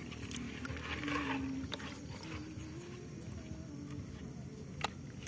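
A hand stirring live rice-field eels in a bucket with a little water: quiet wet handling sounds with a few light clicks. A faint wavering hum runs behind it.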